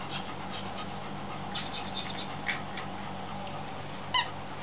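A plush squeaky dog toy squeezed once near the end, giving a short high squeak, after a stretch of faint ticks and rustling over a steady low hum.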